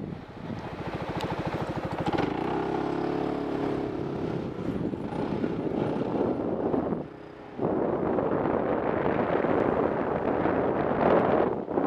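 Motorcycle engine running while riding, its pitch rising as it accelerates in the first few seconds, with a short lull about seven seconds in. After that, wind rushing over the microphone drowns most of the engine.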